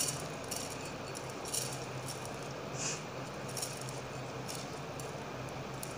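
Soaked, drained rice being scraped by hand out of a ceramic bowl into a steel mixer-grinder jar: light scattered clicks and rattles of damp grains and fingers against the bowl and jar, over a faint steady low hum.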